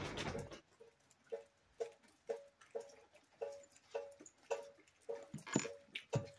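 Water dripping steadily into a bucket, about two drips a second, each a short ringing plink at the same pitch. A brief rush of noise sounds at the start, and a couple of heavier drops knock near the end.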